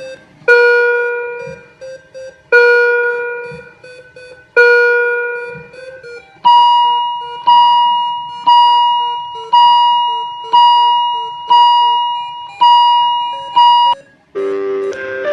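Hospital patient-monitor alarm: loud electronic chime tones that each ring and fade, about every two seconds at first and then about once a second at a higher pitch, with a soft, quicker beeping between them. Near the end a denser run of different tones starts.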